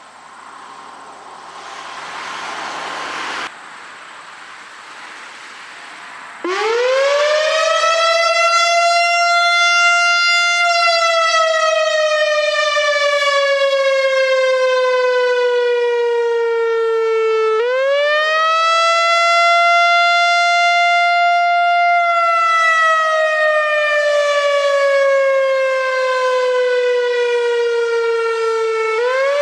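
Whelen WPS-4004 electronic warning siren sounding its wail test signal. About six seconds in, the tone sweeps up quickly, holds high for several seconds, then glides slowly down, repeating roughly every eleven seconds. Before it, a hiss swells and then cuts off abruptly.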